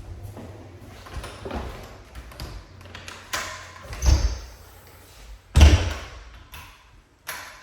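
Knocks, taps and thumps of hands working on a mini-split indoor unit, with two louder thuds about four and five and a half seconds in.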